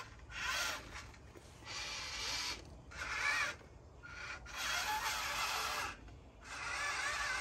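Small electric motors and gearing of an RC forklift running in several short bursts, each with a wavering whine and a gritty, rubbing grind.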